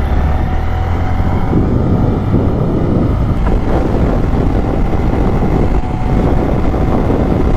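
Motorcycle under way on the road: the engine running, buried under heavy wind buffeting on the microphone, steady throughout.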